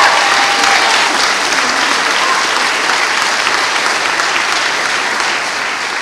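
Audience applauding after a dance, slowly fading.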